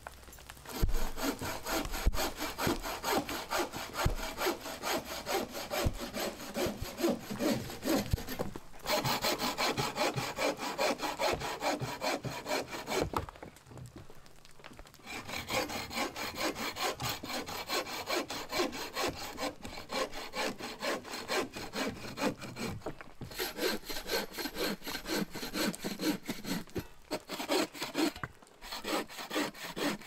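Hand saw cutting through wood in steady back-and-forth strokes, with a pause of about two seconds halfway through and a few shorter breaks near the end.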